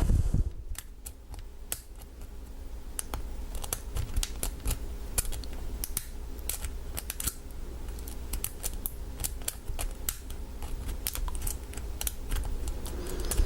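Small irregular clicks and scrapes of a lock pick and tension wrench working the pin stack of an American 1100 padlock during single-pin picking.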